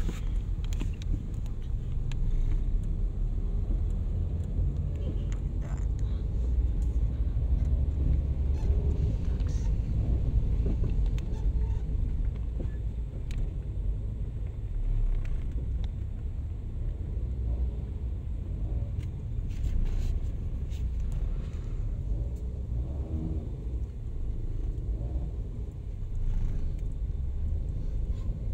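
Steady low rumble of a car heard from inside the cabin of a taxi in traffic: engine and road noise.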